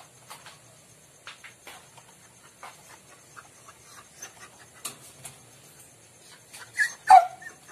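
Faint, scattered clicks and taps of an 8 mm box wrench working on the gear-change cable cover's holder bolts. Near the end comes one short, louder sound with a sliding pitch.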